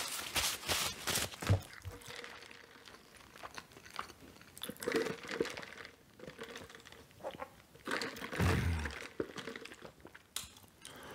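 Close-miked chewing and wet mouth sounds of someone eating a Double Big Mac heavy with sauce. The smacking is dense for the first two seconds, then sparser, with a couple of soft thuds.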